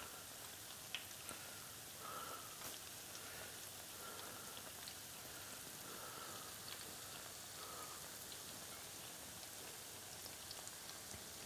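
Battered sausages and loose corn dog batter frying in vegetable oil in a skillet: a faint, steady sizzle with scattered pops.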